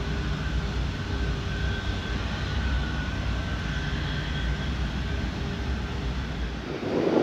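An Airbus A340-600's four Rolls-Royce Trent 500 turbofans at low taxi power: a steady low rumble with a faint high whine over it. Near the end the rumble drops away and a brief louder rush of wind noise takes over.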